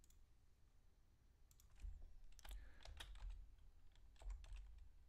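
Faint, irregular keystrokes on a computer keyboard, beginning about a second and a half in.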